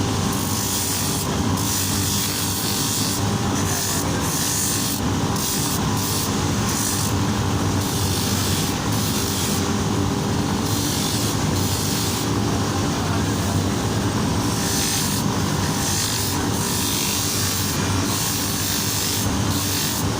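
Hand sanding or rubbing on a metal part, an abrasive scraping that swells and eases in irregular strokes, over a steady low hum.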